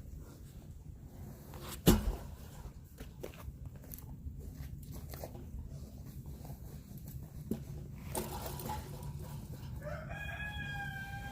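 A sharp knock about two seconds in, then near the end a rooster crows, one long call held on a steady pitch.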